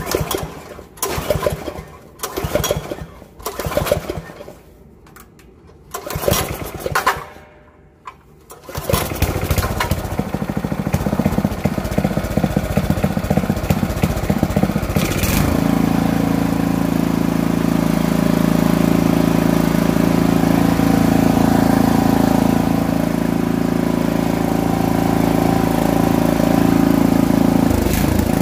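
Small engine on a Poulan Pro walk-behind cultivator being pull-started: about five short pulls, then it catches about nine seconds in and runs unevenly before settling into a steady run from about fifteen seconds in.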